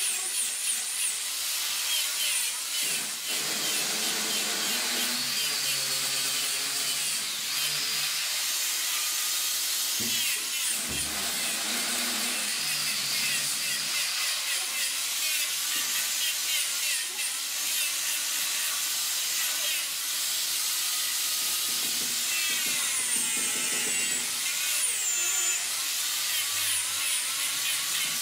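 Handheld angle grinder with an abrasive disc grinding and shaping a curved wooden stair-rail volute. It runs continuously with a high motor whine and a gritty rasp, the pitch sliding down and back up as the disc bites into the wood.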